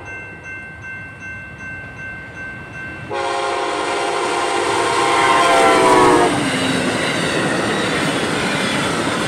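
Amtrak Siemens Charger diesel locomotive blowing its multi-note air horn, which starts suddenly about three seconds in and drops in pitch as the locomotive goes by. Then comes the steady rumble of the passenger cars rolling past on the rails.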